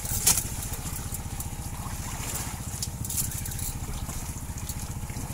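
Boat's engine running steadily with a fast, even chugging, and one sharp knock a moment after the start.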